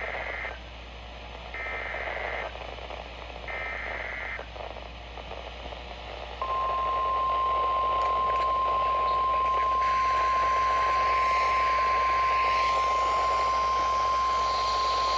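Emergency Alert System warning: the tail of one and then two more short, buzzy SAME data bursts about two seconds apart, and about six seconds in a steady single-pitch alarm tone held for about nine seconds. It is the NOAA Weather Radio warning alarm tone that comes before a flash flood warning message, heard over a hiss of static.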